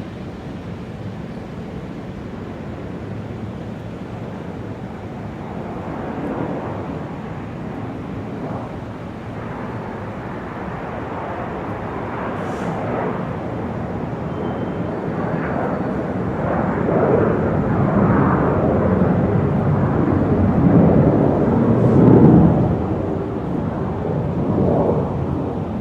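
Airport ambience dominated by the rumble of a jet airplane, growing steadily louder and loudest near the end before easing a little.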